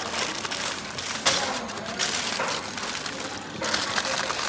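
Aluminium foil crinkling and rustling in uneven bursts as hands crush and fold it tightly around a parcel, with a sharper crackle just over a second in.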